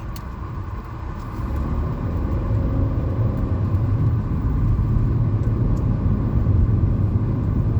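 Car driving, heard from inside the cabin: a steady low engine and road rumble that grows louder over the first few seconds and then holds.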